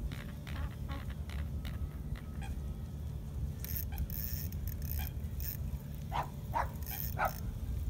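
Wind buffeting the microphone in a steady low rumble, with a run of light clicks in the first two seconds and three or four short animal calls about six to seven seconds in.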